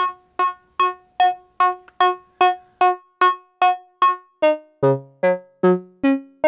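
Eurorack modular synthesizer playing short plucked, quickly decaying notes about two and a half times a second, the same pitch over and over: PoliMATHS span set to 8, so each step lands back on the same channel. About four and a half seconds in, the notes begin to change pitch from one to the next.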